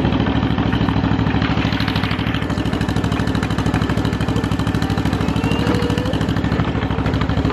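Tractor engine running steadily with a low, even pulse, pulling a ride.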